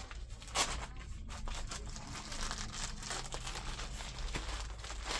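Packaging rustling, crinkling and tearing as a cricket bat is unwrapped, in irregular crackly strokes with one sharper rip about half a second in.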